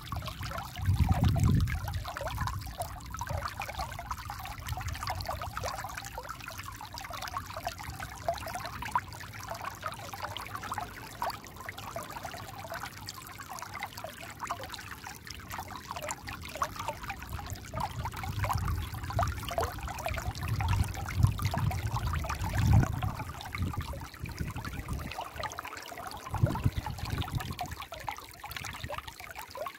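Shallow stream running over rounded stones: a steady trickling, splashing flow of water. Low rumbles swell and fade beneath it about a second in, again in the last third, and briefly near the end.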